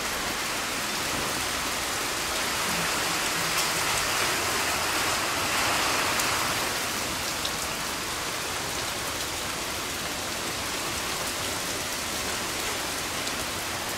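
Steady rain falling, with wind gusting through the tall trees as a hurricane approaches; the rush swells briefly about halfway through.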